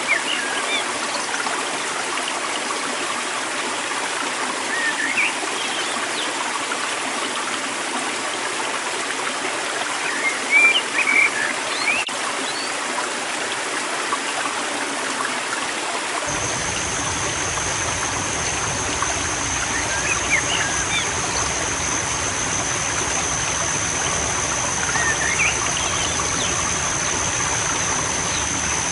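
A river running steadily, with small birds chirping briefly every few seconds. A little over halfway through, a steady high-pitched whine comes in and holds, joined by a low rumble.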